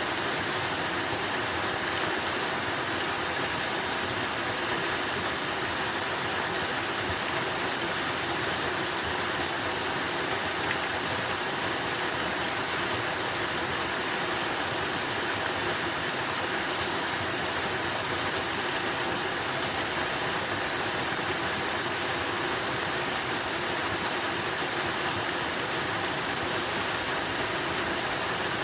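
Running water rushing in a steady, even stream of noise that never changes.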